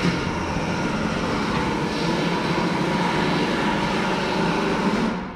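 Steady loud machine noise, a running hum with a faint steady whine, that cuts off suddenly near the end.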